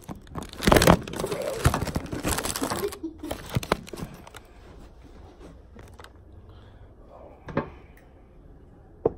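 Handling noise right at a phone's microphone: loud rustling and rubbing for about two seconds, then a few scattered sharp knocks as it is moved about on a glass table.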